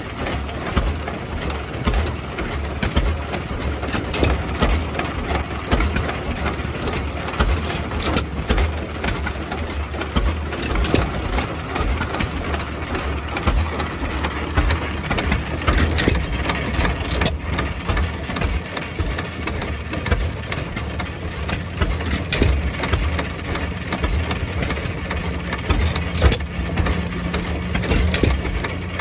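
2 hp John Deere–sold Waterloo Boy Type H single-cylinder hit-and-miss engine running, a steady low rumble with frequent sharp clicks and knocks.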